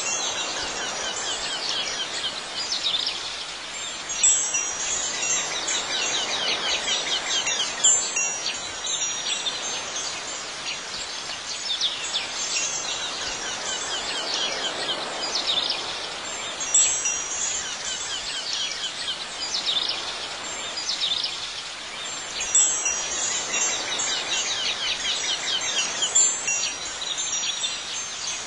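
Wind chimes ringing on and off, with louder strikes every few seconds, over a continuous background of high chirping.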